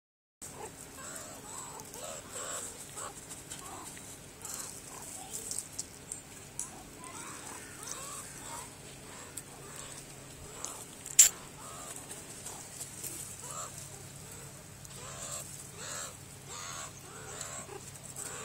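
A group of meerkats calling, many short calls overlapping one another, with a single sharp click about halfway through.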